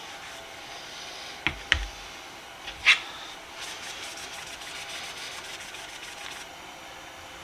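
Screwdrivers being handled on a workbench: a couple of sharp clicks, then a louder click about three seconds in, with faint rubbing over a steady background hiss.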